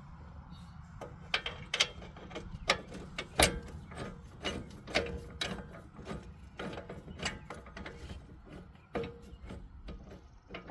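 Hand ratchet clicking in short, irregular strokes as it snugs the 18 mm mounting bolts of a rear wheel hub assembly.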